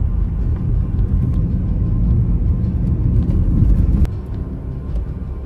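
Steady deep roar of rushing water at a waterfall, heavy in the low end. It drops to a quieter level about four seconds in.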